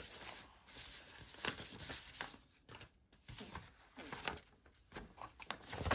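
Sheets of gel-printed paper rustling as they are handled and moved about, in soft irregular rustles with a few brief crisp strokes.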